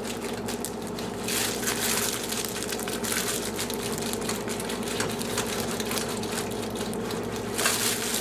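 A kitchen knife that is not a bread knife sawing slices off a slightly stale loaf of French bread, the firm crust crunching under each stroke. A few louder strokes come near the end.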